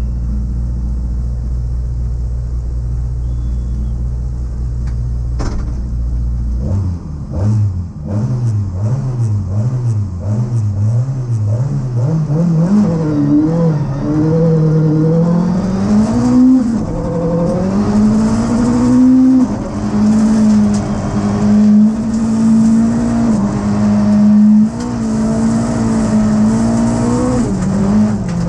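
Volkswagen Golf Mk3 Group H rally car's engine heard from inside the cabin: running steadily at first, then revved up and down over and over while held at the start line, then pulling away hard and accelerating up through the gears, the note dropping briefly at each shift.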